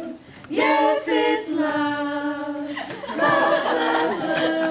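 A small group of young women singing a cappella, with long held notes and a short break just before the middle.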